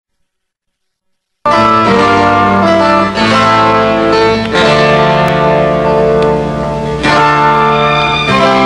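Silence for about a second and a half, then instrumental background music starts abruptly: held chords that change every second or two.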